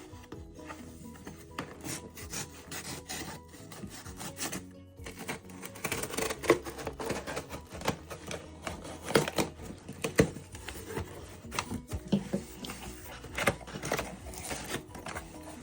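Parcel packaging being cut open and handled: irregular scraping, rubbing and crackling that gets louder and busier about six seconds in.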